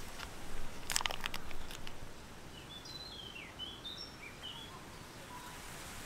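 Aluminium foil wrapper crinkling as it is peeled off a round of soft cheese, in the first couple of seconds. Then a bird sings a short run of quick, high chirping notes over steady forest ambience.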